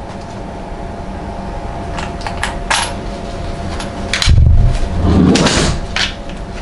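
Handling noise from a rifle sling and its attached pouch being worked by hand: a few light clicks, then heavy muffled thumps and rustling about four to five seconds in, over a faint steady hum.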